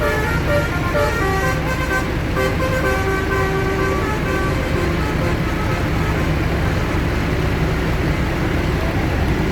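A bus's multi-tone 'telolet' musical horn playing a short tune of held notes that change pitch, over the steady rumble of the bus's engine. The horn notes fill about the first half and then fade back under the engine.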